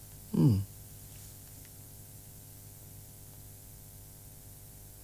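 Faint steady hiss with a low electrical hum in the background noise of the recording. A brief fragment of a man's voice comes about half a second in.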